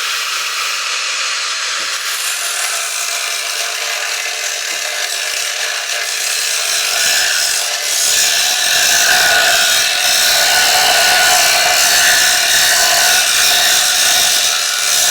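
A power tool running continuously under load, cutting steadily, growing louder about eight seconds in.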